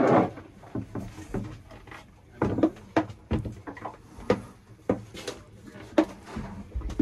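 Irregular knocks, clicks and creaks of a person climbing and shifting about on the companionway steps of a small yacht's cabin, handling gear and working his feet into the steering stirrups.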